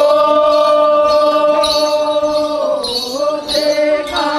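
Men's group chant of the Palue Togo dance: the voices hold one long note for a couple of seconds, then break into shorter, gliding phrases, with jingling in time.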